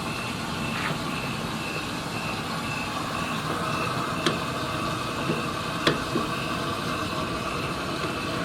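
Steady rush of water flowing through the tankless water heater's plumbing and service valves, with a faint high whistle, as the supply is turned back on after flushing. Two light clicks come in the middle.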